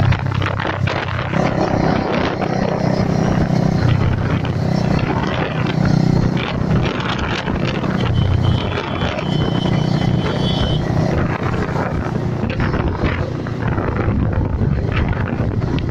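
Bajaj Pulsar motorcycle engine running as the bike is ridden, its note rising and falling with the throttle, with wind noise on the microphone.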